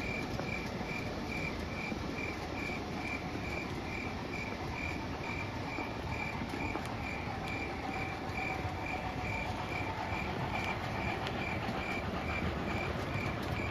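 Steady rumble of an O-gauge model freight train rolling along its track, under an even, high, cricket-like chirping that repeats a little more than twice a second.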